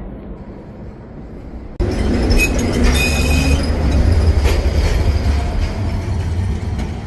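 A quieter low background hum that gives way abruptly, about two seconds in, to the loud low rumble of a rail vehicle running on its track. High wheel squeal rings out for about a second shortly after the rumble begins.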